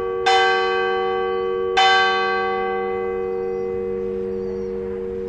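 Church tower bell struck twice, about a second and a half apart. Each stroke rings out over a long hum that slowly fades after the last one.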